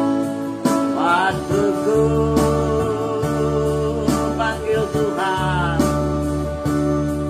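Yamaha arranger keyboard playing an instrumental interlude of a slow gospel song: sustained chords over a held bass line, with a slide-guitar-like lead bending up in pitch about a second in and again near five seconds, and light percussion ticks.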